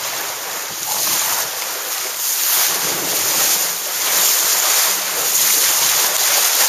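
Wind buffeting the microphone over water rushing along the hull of a Laser SB3 sportboat sailing downwind under spinnaker: a steady rushing noise that swells louder a few times.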